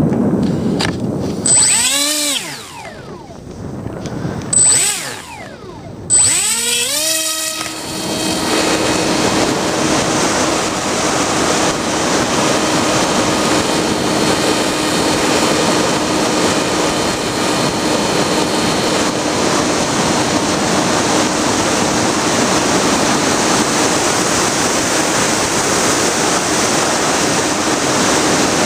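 Bixler foam FPV plane's electric pusher motor, heard from the onboard camera. It is revved briefly twice in rising and falling whines. About six seconds in it spins up to full throttle for launch, then runs as a steady whine under loud wind rush in flight.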